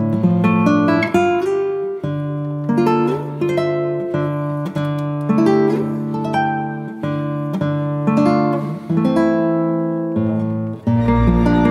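Background music of plucked acoustic guitar, a steady run of picked and strummed notes. About 11 seconds in, a fuller section with a deep bass begins.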